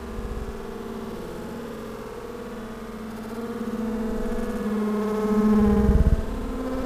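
Honeybees buzzing at the hive entrance: a droning hum that wavers in pitch and swells loudest about five seconds in.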